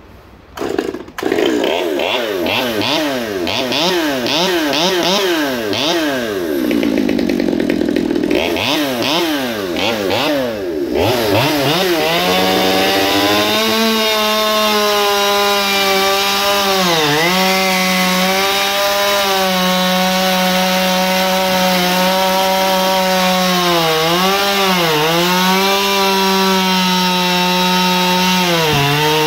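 Ported West Coast-built Stihl MS 200T top-handle two-stroke chainsaw fires up about a second in and is revved up and down in quick blips, then from about twelve seconds in runs at steady full throttle with a Silvey race chain, cutting through kiln-dried Douglas fir; its pitch sags briefly twice under the load of the cut.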